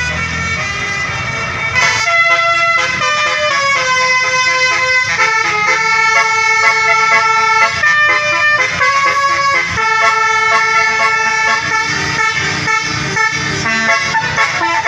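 Bus telolet horn playing a tune over the bus's engine rumble. About two seconds in, a string of loud held horn notes begins, stepping from pitch to pitch.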